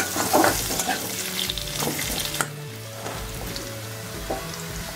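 Potato wedges sizzling in hot mustard oil in a kadai while a spatula scrapes and turns them against the pan. About halfway through the stirring stops and the frying carries on more quietly.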